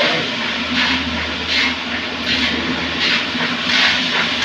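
Wooden hand plane (randa) shaving the cabinet frame's timber in repeated strokes, a rasping swish about every three-quarters of a second, to smooth and flatten the surface. A steady low hum runs underneath.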